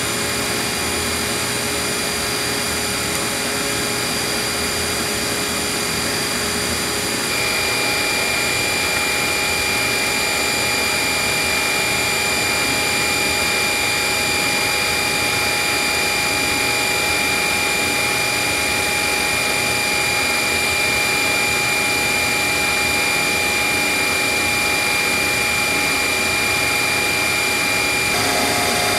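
Haas VF-9 CNC vertical machining center running a program: steady machine noise with whining tones. A higher whine joins about seven seconds in and stops just before the end, when a lower tone steps down in pitch.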